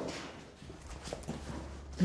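Low steady hum with a few faint clicks and taps near the middle, from a padlock being handled on a steel-mesh cage door.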